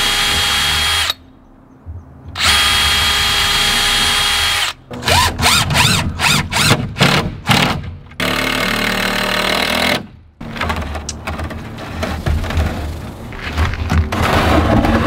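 Cordless drill driving screws into a wooden frame: the motor runs steadily, stops for about a second, runs again, then gives a quick string of short pulses before another steady run. After about ten seconds the drilling stops and the wooden frame clatters and scrapes as it is handled and tipped over.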